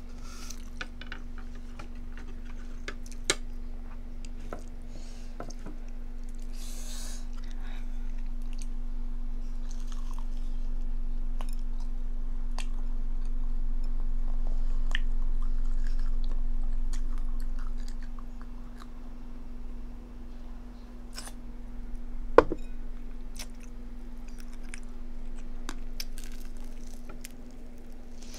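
Close-up mukbang eating sounds: chewing and crunching with wet mouth clicks, and one sharp knock about three-quarters of the way through, over a steady low hum.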